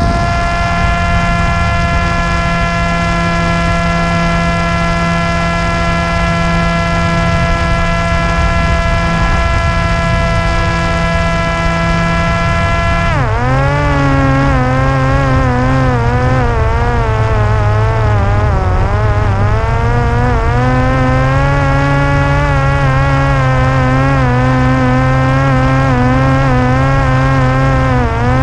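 Parrot Disco fixed-wing drone's electric motor and pusher propeller whining at a steady pitch, over a rush of wind noise. About halfway through the pitch drops sharply, then keeps wavering up and down.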